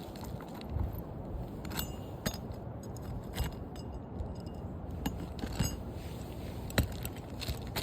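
Scattered light clinks and taps from roofing work over a steady low rumble, one sharper tap near the end.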